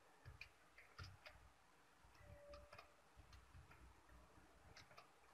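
Near silence with faint, irregular clicks of computer keyboard keys as text is typed and deleted.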